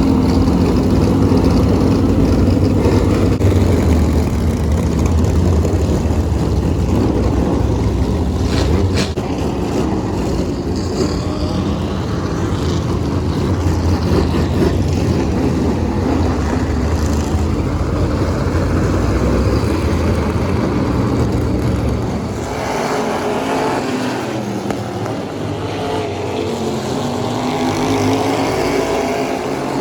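Race car engines running hard on track, a loud steady rumble. A little over two-thirds of the way in, the deep low rumble drops away and a higher engine note takes over.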